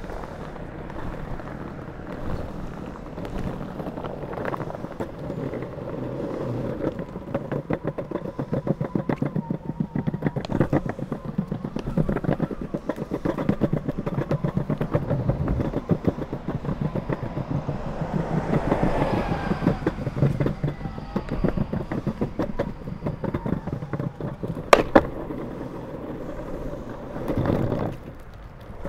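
Drop-through longboard (Pantheon Trip) rolling on soft urethane wheels over paved sidewalk: a steady rumble with a quick ticking as the wheels cross the slab joints. A passing vehicle swells up and fades about two-thirds of the way through, and two sharp knocks come a little before the end.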